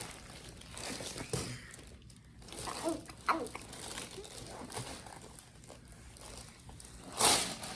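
Rustling and crinkling handling noises with a few short faint vocal sounds from a toddler, and a louder rustle near the end.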